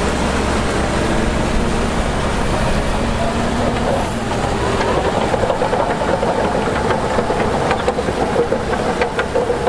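Diesel engine of heavy earthmoving machinery running steadily. From about four seconds in its sound turns into a rapid, even pulsing.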